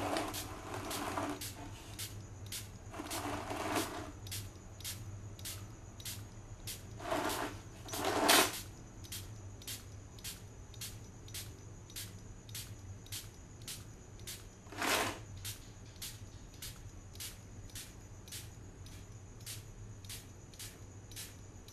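Hand trigger sprayer pumped about twice a second, each squeeze a short spray hiss, over a steady low hum. A few louder handling noises come in between, the loudest about eight seconds in.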